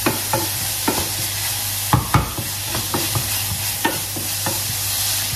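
Chopped vegetables frying in oil in a stainless steel pan, with a steady sizzle. A wooden spoon stirs them, knocking and scraping against the pan a dozen or so times at an uneven pace, hardest about two seconds in.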